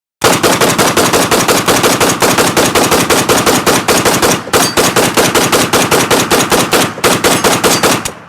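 AK-47 rifle firing on full automatic: a long run of rapid, evenly spaced shots with two short breaks, about four and a half and seven seconds in, before the firing stops near the end.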